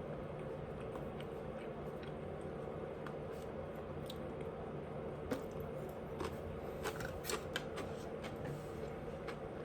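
A person chewing food close to the microphone: scattered soft wet clicks and squishes, busier in the second half, over a steady low hum.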